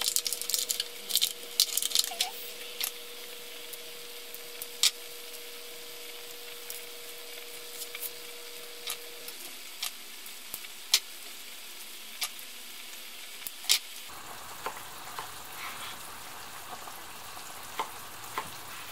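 Shakshuka of eggs, tomatoes and peppers frying in a cast-iron pan with a steady sizzle. Sharp clicks and taps come now and then over it, from sausages being unwrapped and sliced with a knife on a wooden board.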